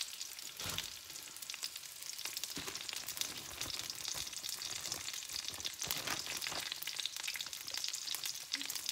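Sliced green bell pepper and onion sizzling in a hot cast-iron skillet, a steady crackling hiss with a few louder pops.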